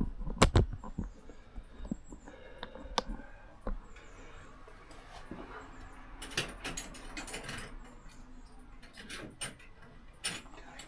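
Scattered light clicks and knocks from handling, with a denser cluster of them about six to seven and a half seconds in.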